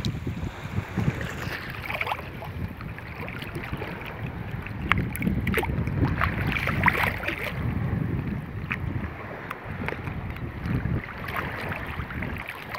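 Shallow water sloshing and lapping around a person wading waist-deep, with small splashes and wind buffeting the microphone.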